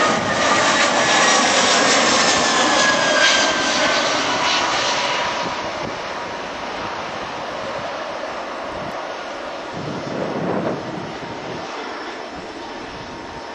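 Airbus A320-214's CFM56 turbofan engines on a landing approach, passing low overhead with a whine that falls in pitch as it goes by, then the jet noise fading as the airliner descends away to the runway. The noise swells briefly about ten seconds in.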